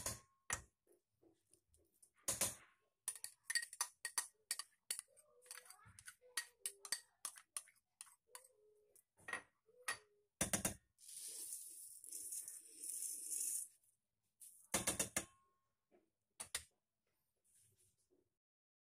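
A metal spoon clinking and scraping against a stainless steel basin as dessert ingredients are scooped and spread, with a couple of louder knocks. A little past the middle comes a rustling pour of about three seconds, as toasted rice flakes (pinipig) are poured over the top.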